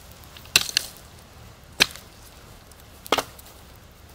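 Mattock biting into hard, dry ground: three sharp blows a little over a second apart while digging a pit.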